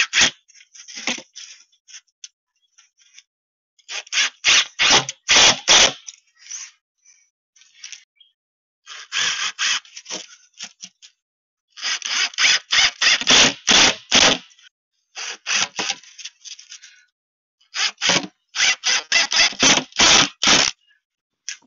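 Runs of quick scraping strokes, about three or four a second, each run lasting one to three seconds with short pauses between.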